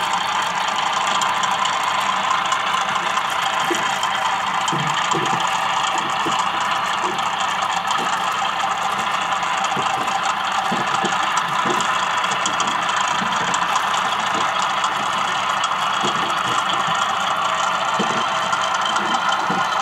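Electronic diesel sound simulator in a scratch-built scale-model generator, playing a steady diesel engine running sound through a small speaker, thin with little bass.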